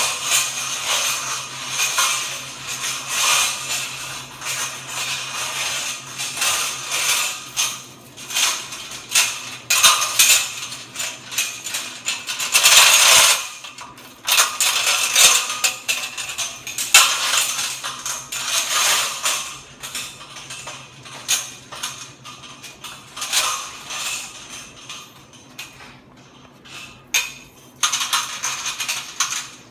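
Moving-head beam lights on a lighting truss moving, their motors and mechanisms clicking and rattling in irregular bursts over a steady low hum.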